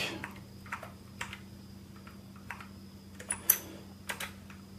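Slow, irregular key presses on a Sinclair QL keyboard: single sharp clicks spaced a fraction of a second to a second apart, over a faint steady low hum.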